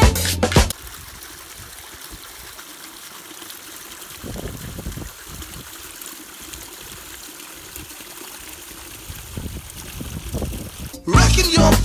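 A small trickle of water spilling over rocks into a shallow pool: a steady, gentle trickling with a few small splashes. Music cuts off just after the start and comes back in about a second before the end.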